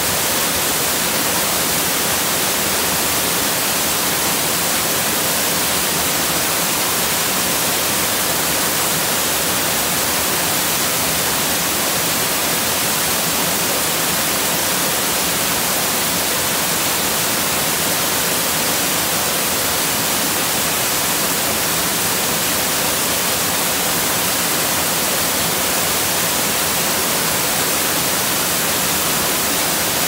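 Small rock waterfall in two streams, splashing down over mossy rocks into a foamy pool: a steady rush of falling water.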